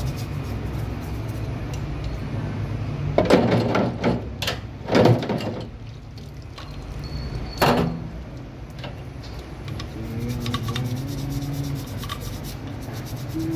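Toothbrush scrubbing rust off the wet steel slide and frame of a 1911 .45 pistol, a rubbing, scratchy sound, with a few louder bursts of handling noise between about three and eight seconds in. A steady low hum runs underneath.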